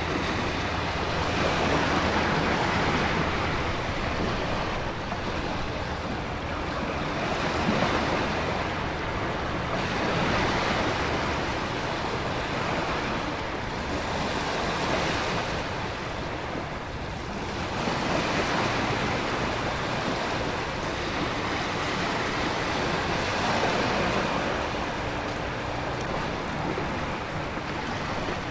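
Storm ambience: a dense, steady rush of ocean surf, wind and heavy rain, with the surf swelling and easing every few seconds.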